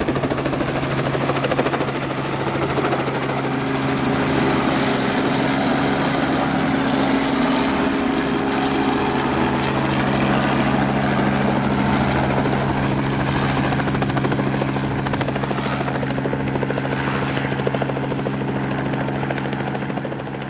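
Helicopter running steadily in flight, a constant engine and rotor sound with a steady low hum. The pitch of the hum shifts slightly about nine seconds in, and the sound begins to fade right at the end.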